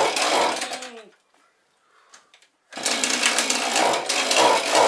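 Chainsaw buzzing in two bursts. The first dies away about a second in, with a voice yelling over it. After a short silence, a second, longer burst starts nearly three seconds in.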